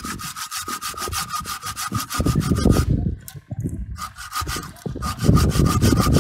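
A hand saw cutting through firewood in quick back-and-forth strokes, with a short pause about three seconds in and louder strokes near the end.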